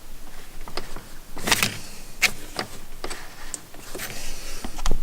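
Scattered clicks, scrapes and knocks of hands and tools working on engine parts, about half a dozen short sharp sounds with a louder knock near the end.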